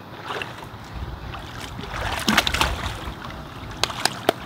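Swimming-pool water splashing and churning, with a few sharp taps near the end.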